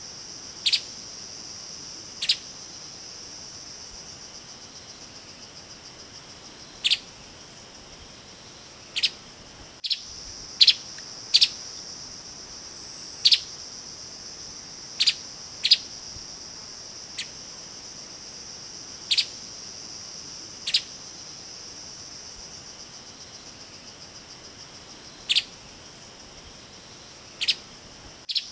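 Streaked spiderhunter giving short, sharp single calls at irregular intervals, roughly every one to three seconds, over a steady high-pitched insect drone.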